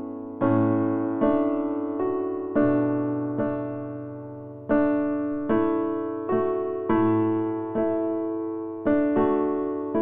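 Slow background piano music: soft chords struck roughly once a second, each left to ring and fade before the next.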